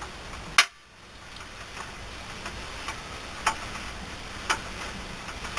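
A car jack being let down under the vehicle: one sharp click about half a second in, then a run of light ticks, roughly one or two a second.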